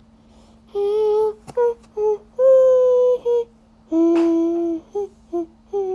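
A child humming a tune wordlessly in a series of held notes.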